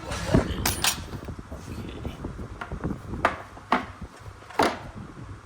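Tools and metal parts being handled in a workshop: a scattered series of knocks and clinks, about six sharp ones.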